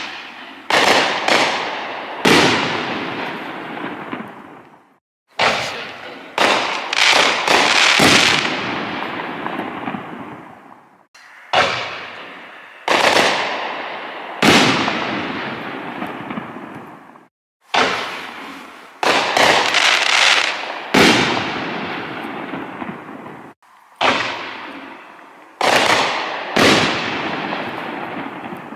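Fox Fireworks Koto Festival 24-shot consumer fireworks cake firing: sharp launch and burst reports follow one another, each trailing off into a fading hiss. They come in runs of three to five, broken by sudden short silences every five or six seconds.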